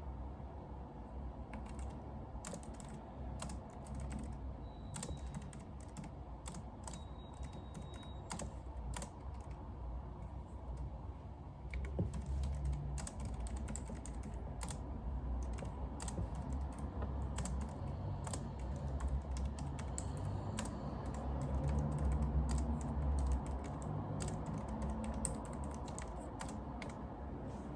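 Typing on a computer keyboard: irregular runs of keystroke clicks over a steady low background hum.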